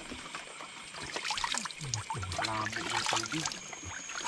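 Water splashing and trickling in a quick run of small splashes, busiest in the middle, with a faint voice underneath.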